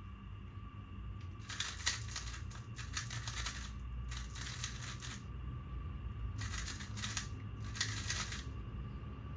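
Plastic 3x3 speedcube being turned rapidly by hand, its layers clacking in four bursts of quick turns separated by short pauses.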